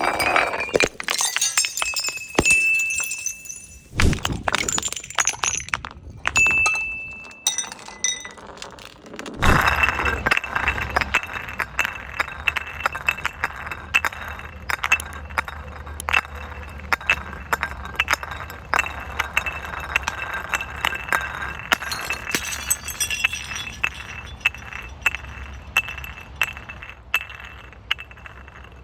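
Glass bottles clinking, knocking and breaking: many sharp impacts, some leaving a brief ringing tone. About ten seconds in it turns into a dense, unbroken run of clinks over a low rumble.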